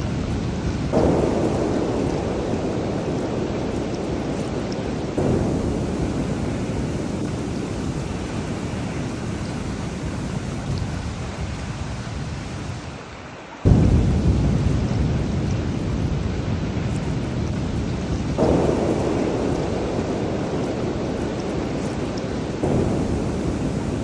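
Steady heavy rain with rolling thunder, the low rumble swelling suddenly about five times and fading slowly after each. The loudest peal comes about halfway through, right after a brief drop in level.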